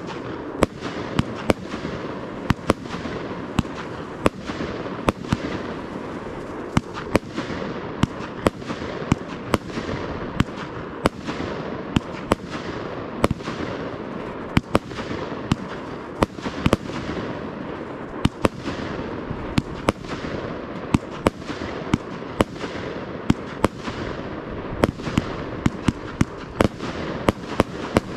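Fireworks display firing a continuous barrage: sharp bangs about two a second over dense, unbroken crackling.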